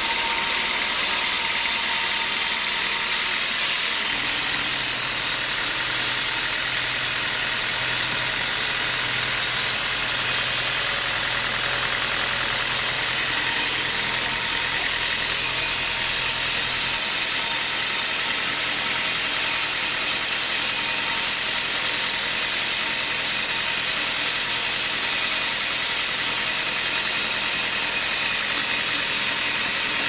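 Band sawmill running steadily, its blade sawing through a large log with an even, unbroken machine noise.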